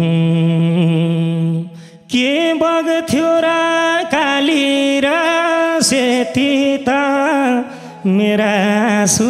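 A male singer's voice singing a slow, drawn-out dohori line into a microphone: one long held note, then ornamented phrases with wavering pitch, breaking off briefly about two seconds in and again near the end.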